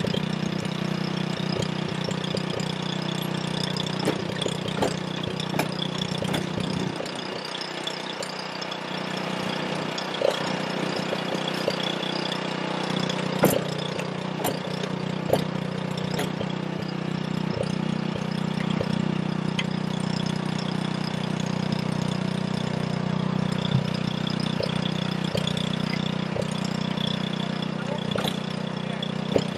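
An engine running steadily at idle, with scattered sharp knocks and clicks over it.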